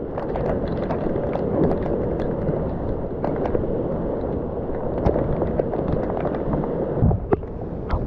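Heavy tropical rain pouring on the forest, with many small crackling taps of drops striking the camera. A couple of low thumps come about seven seconds in.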